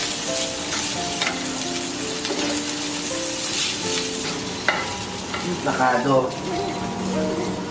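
Rice sizzling in a frying pan while a spatula stirs and scrapes it, with a soft melody playing over it.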